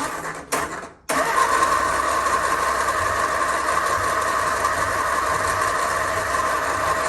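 A Classic Mini's A-series engine being started after standing unused: brief bursts on the starter, then about a second in a sudden steady engine sound that carries on.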